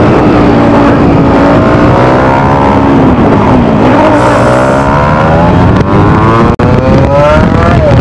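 Single-cylinder 200 cc sport motorcycle engine under way on the road. The revs dip about three and a half seconds in, then climb steadily for about four seconds before dropping at a gear change near the end.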